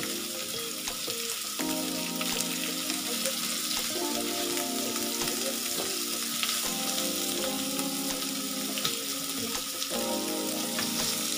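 Beef short ribs sizzling steadily as they sear in a hot double-sided grill pan, with small clicks and scrapes as the pieces are moved and turned with a spatula. Soft background music with held chords plays underneath.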